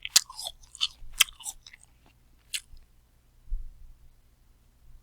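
Someone chewing a crunchy apple: a quick run of crisp, wet crunches that thin out after about a second and a half, with one last crunch a little later. The chewing then stops, leaving only a faint low bump.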